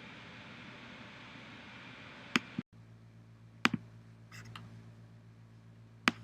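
A few single sharp clicks at a computer, spaced a second or more apart, over a steady hiss. About two and a half seconds in, the hiss cuts off abruptly and a quieter background with a low hum follows.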